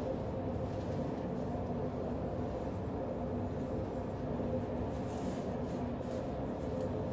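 Steady low machine hum holding a few tones, the loudest thing throughout. Over it, faint rubbing strokes of a damp sponge wiped across the face of mortared glass blocks.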